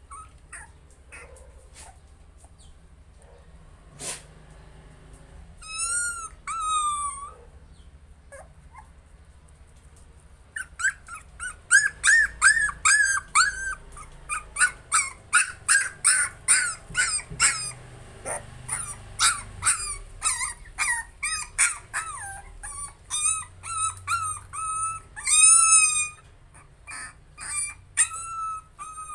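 A young puppy crying: two drawn-out whines about six seconds in, then from about ten seconds a fast, steady run of short yelping whimpers, about three a second, with a few longer howling cries near the end.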